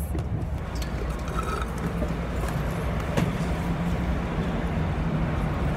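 Bus engine running, a steady low rumble with a faint hum heard from inside the coach, with a brief knock about three seconds in.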